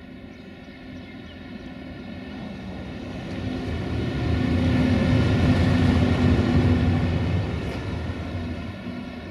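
Siemens Taurus ES64 U2 electric locomotive running light past at low speed: a steady electrical hum over the rumble of its wheels on the rails, growing louder to a peak about five to seven seconds in, then fading as it moves away.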